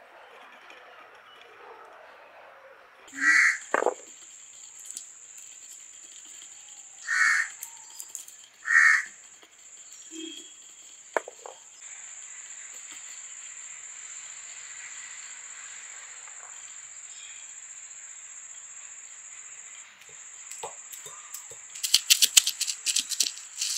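A bird calls loudly three times over a steady high whine; about 22 seconds in, a granite stone roller on a flat grinding stone starts crushing peeled garlic cloves in a quick run of sharp knocks and rattles, the loudest sound here.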